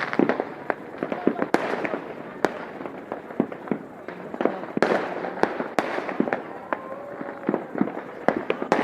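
New Year fireworks and firecrackers going off all around: a dense, irregular string of sharp bangs and crackles over a continuous din of further explosions.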